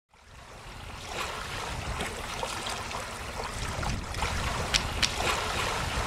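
Sea surf washing on a shore, fading in over the first second, with a few brief sharp clicks.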